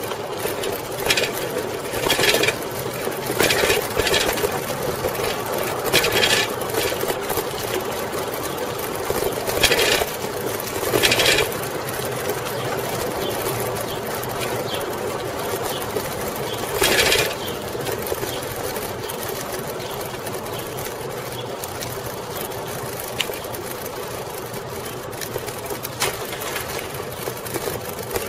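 Coker Monster Cruiser bicycle with 36-inch tyres rolling along a paved street, heard through a camera mounted on the bike: a steady mechanical whir and rattle. Several short, louder rushes of noise break in, most of them in the first two thirds.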